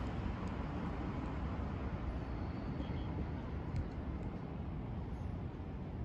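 Steady urban ambience: distant road traffic hum, with wind rumbling on the microphone.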